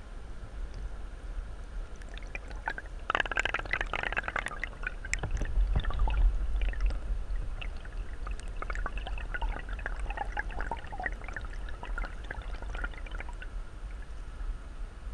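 Stream water flowing over a camera submerged on the gravel bed of a trout stream, heard underwater: a steady low rumble, with a burst of dense crackling about three seconds in and scattered clicks and crackles through the middle.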